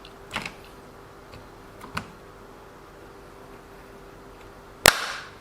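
A few light clicks and taps of small RC car parts being handled on a workbench, then one sharp knock near the end, over a faint steady hum.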